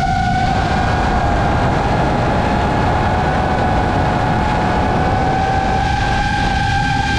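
FPV racing quadcopter's motors and propellers whining at a steady pitch over a dense rush of prop wash and wind, as picked up by the GoPro mounted on the drone.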